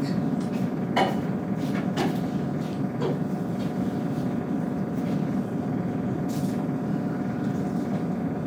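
Steady low rumble of room background noise, with a few light knocks about one, two and three seconds in and a brief hiss just past six seconds.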